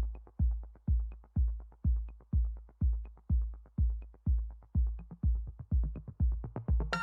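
Electronic background music with a steady four-on-the-floor kick drum, about two beats a second, and light hi-hat ticks. Sustained synth chords come in near the end.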